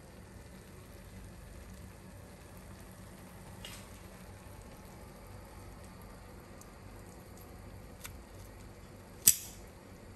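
Faint steady background hiss with a couple of light clicks, then one sharp, loud clack of metal tongs against the tray about nine seconds in.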